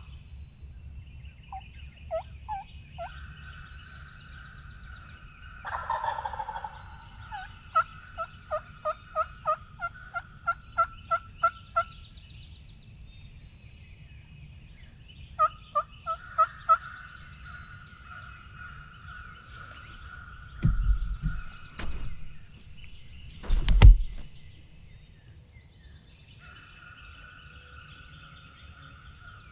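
Wild turkey calling in the woods: a gobble about six seconds in, then a run of about ten evenly spaced yelping notes, and a few more short notes a little later. Several low thumps come near the end.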